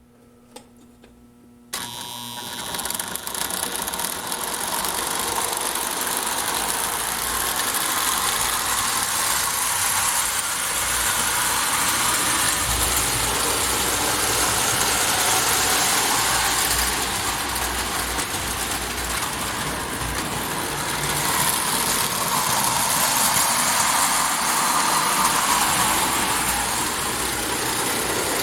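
Marx tinplate toy train running on its track: a steady whirring and rattling of the locomotive's motor and the wheels, starting abruptly about two seconds in.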